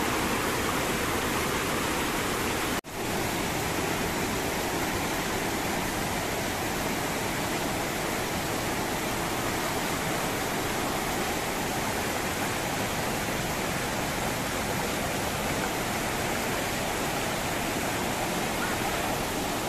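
Fast mountain stream rushing and churning over boulders: a steady, unbroken roar of white water, with a brief dropout about three seconds in.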